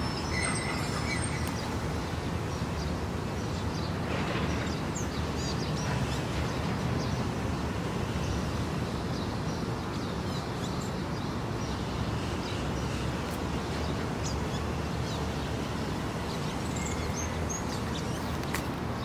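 Steady outdoor street ambience: a low, even hum of distant traffic with faint, scattered bird chirps.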